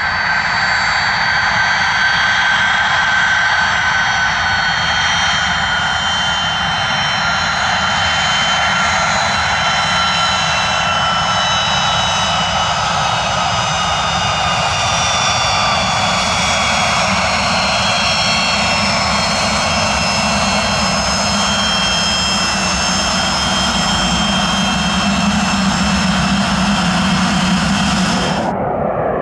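Pilatus PC-24 business jet on the runway, its twin Williams FJ44 turbofans running with a steady layered whine over a low rumble. Some of the whine tones fall slowly in pitch, and the rumble strengthens as the jet comes close. The sound breaks off abruptly shortly before the end.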